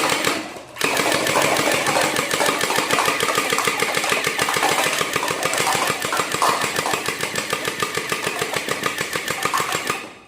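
Toy AK-47 rifle firing a long rapid automatic burst, a fast even rattle. It breaks off briefly about half a second in and stops just before the end.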